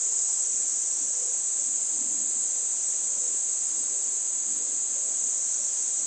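Insects keep up a steady, high-pitched drone without a break.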